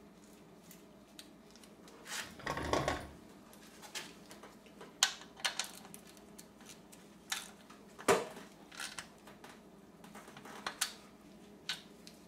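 Irregular metallic clicks and clinks of a hand ratchet and socket putting the oil drain plug, with its new crush washer, back into the oil pan and tightening it. A short rattling burst comes about two seconds in, and one sharp loud click about eight seconds in.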